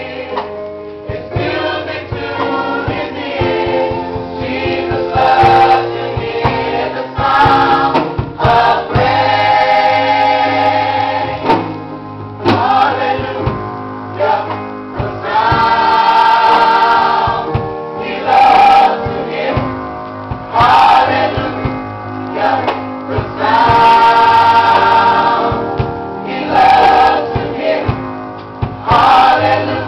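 Gospel choir singing with instrumental accompaniment and a steady bass line, in sustained phrases that swell loud every few seconds.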